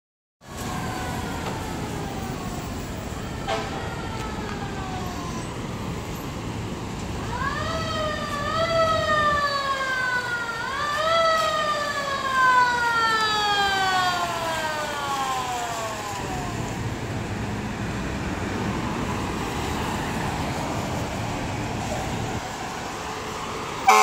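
Fire engine siren sliding down in pitch, then winding up twice, about 7 and 11 seconds in, and coasting down until it fades out around 16 seconds, over city traffic. A loud air horn blast starts right at the very end.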